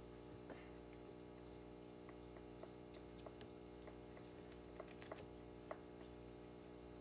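Faint, irregular small clicks of a guinea pig chewing a lettuce leaf, over a steady low room hum.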